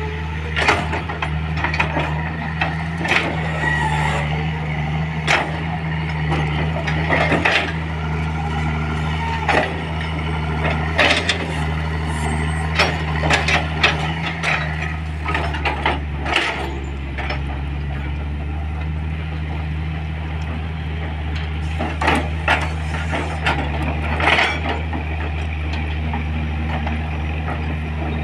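Komatsu PC200 hydraulic excavator's diesel engine running steadily as the machine digs and moves soil, with frequent sharp clanks and knocks from the working bucket and arm.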